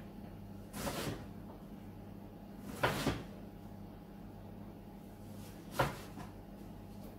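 Kitchen knife chopping diced onion on a wooden chopping board: a few separate knocks of the blade against the board, roughly two to three seconds apart.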